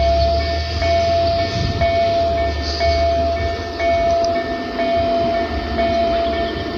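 Electronic level-crossing warning signal (EDG-2000 with Tonsil horn loudspeakers) sounding a repeating tone, about one beep a second, while the barriers are down. A low rumble runs underneath.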